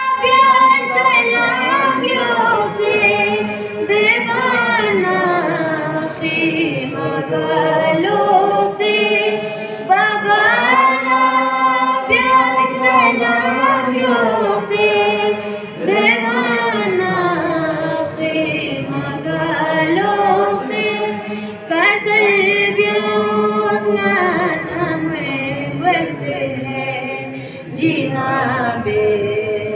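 A young solo reciter sings a Balti qasida, a devotional poem, without accompaniment. The phrases are long and melodic, with held notes and sliding pitch.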